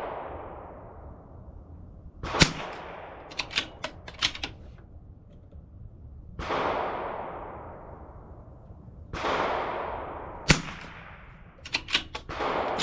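Two sharp .22 LR rimfire rifle shots from a bolt-action CZ 457, about eight seconds apart, each followed by a quick run of metallic clicks as the bolt is cycled. In between come sudden hissing sounds that fade away over a couple of seconds.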